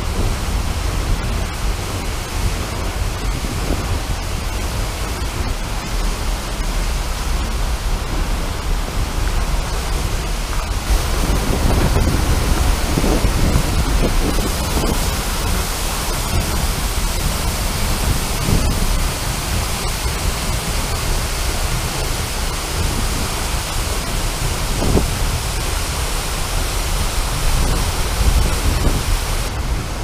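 Seljalandsfoss waterfall's steady roar of falling water and spray, heard close up from the path behind the falls. It grows louder and hissier about eleven seconds in.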